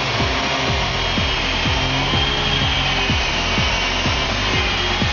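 Walkera CH-46 RC tandem-rotor electric helicopter hovering: its four 370-size electric motors whine at a pitch that drifts up and down with the throttle, over the whir of the two rotors, with a low pulsing about three times a second.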